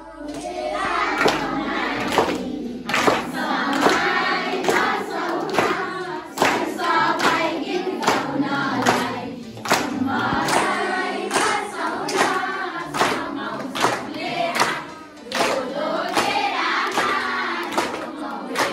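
A roomful of schoolchildren singing together, clapping along in a steady rhythm of about one to two claps a second.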